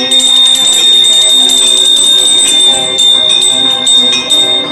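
Temple bell ringing continuously under rapid, repeated clapper strikes, its high ring held steady over lower ringing tones.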